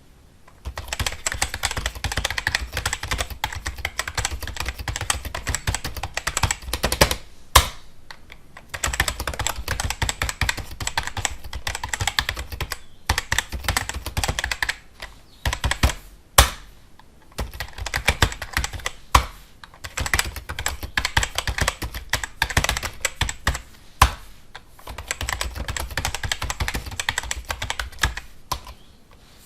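Fast typing on a computer keyboard: dense rapid key clicks in runs of a few seconds, broken by short pauses, with a few louder single key strikes standing out.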